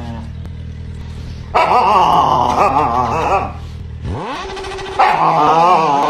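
A dog giving two long, wavering howl-like cries, each about two seconds, over a low steady hum in the first part.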